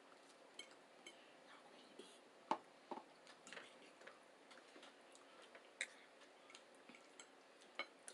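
Faint eating sounds: chewing and mouth noises with scattered sharp clicks and taps, the loudest about two and a half seconds in.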